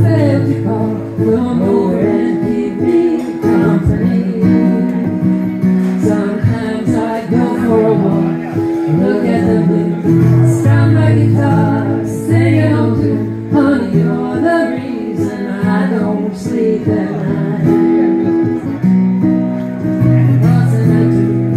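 Live acoustic guitar strummed through a small PA, with a woman singing over it.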